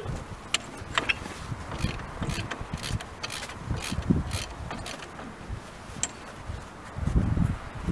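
Hand ratchet wrench clicking in quick runs as nuts are backed off the rusty eccentric crank of a steam locomotive's driving wheel, metal on metal, with duller handling knocks near the end.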